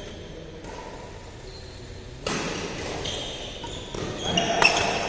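Badminton doubles rally on an indoor court: short squeaks of court shoes on the floor and sharp racket strikes on the shuttlecock, with one loud crack near the end, echoing in the hall.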